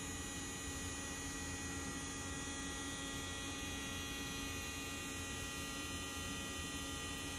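DeWalt compact router on a CNC gantry running steadily while carving foam: a constant hum with several steady tones that neither rise nor fall.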